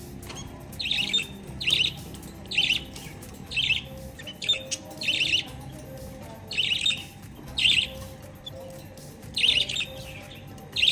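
Lovebirds giving short, shrill chirps in quick clusters, roughly one burst a second, over a faint steady background.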